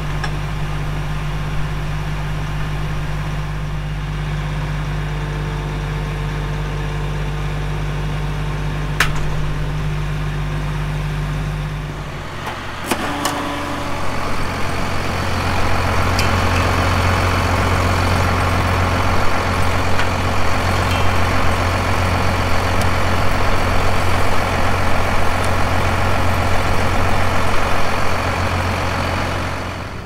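Steady sound of farm diesel engines idling, with a sharp click about nine seconds in. About twelve seconds in it changes to a louder, deeper idle as a Case IH tractor is refuelled at the pump nozzle.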